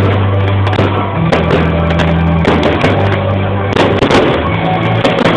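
Fireworks display with many shells bursting in rapid, irregular bangs, over loud music with a steady bass line.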